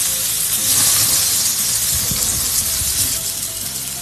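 Chicken breasts sizzling on hot, oiled grill grates: a steady hiss that swells slightly about half a second in.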